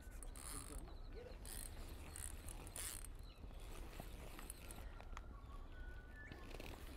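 Spinning reel being wound in short spells against a hooked bream, its gears and clicks turning under the load of the fish.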